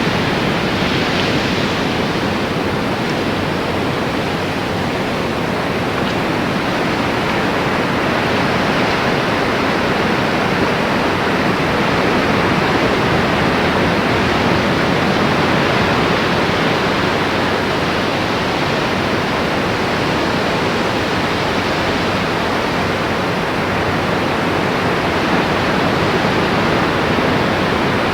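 Steady rushing of ocean surf, loud and even throughout.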